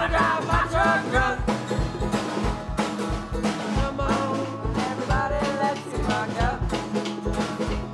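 Music: a song with a sung lead vocal over a steady drum beat.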